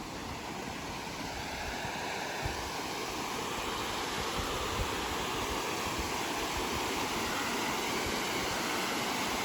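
Water rushing over a lake spillway: a steady, even rush that grows gradually louder.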